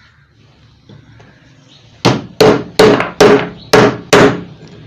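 Hammer blows driving a pedestal fan motor's bearing into its re-machined housing. After about two seconds of quiet come six sharp strikes, a little over two a second, each with a short metallic ring.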